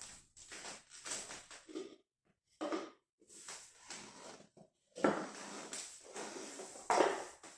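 Upturned plastic bowl and small plastic boxes being handled, set down and slid on a wooden parquet floor, mixed with soft footsteps. The two loudest scrapes or knocks come about five and seven seconds in.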